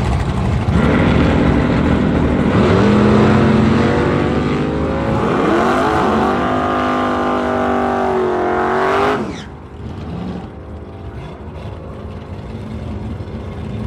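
Drag-racing car making a pass at full throttle: the engine note climbs in pitch, breaks at each gear change and climbs again, then drops away sharply about nine seconds in.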